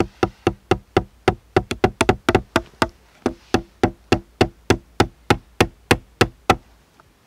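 Quick, even taps of a small axe's head on green wood, about four a second, seating thin sticks into the frame of a bushcraft grill; the tapping stops near the end.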